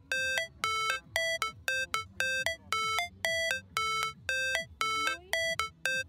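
Background music: a simple melody of short, clipped notes, about two a second, moving between a couple of pitches.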